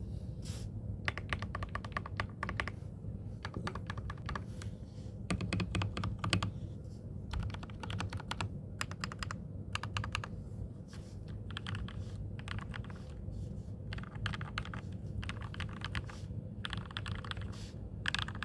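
Typing on a Mongeek MG108B mechanical keyboard with Gateron Milky Yellow Pro linear switches, stock case foam and stabilisers, and PBT pudding keycaps. The keystrokes come in quick bursts with short pauses between.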